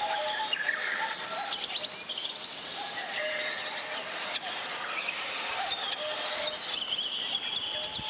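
Mountain valley stream flowing steadily, with several birds singing and calling over it in many short chirps and whistles.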